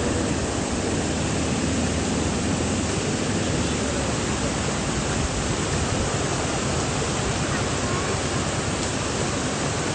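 Floodwater rushing across a road in a steady, unbroken roar of flowing water.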